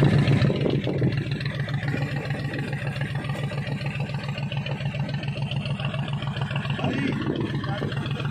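Fishing launch's engine running steadily, with a rapid even low throb.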